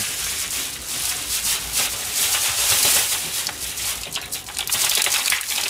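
Thin clear plastic rubbish bag crinkling as it is handled and worked at the neck, a loud, crackly rustle that is strongest about halfway through.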